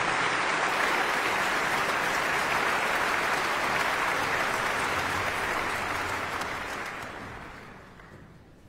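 Audience applauding: dense clapping that starts suddenly and fades out over the last couple of seconds.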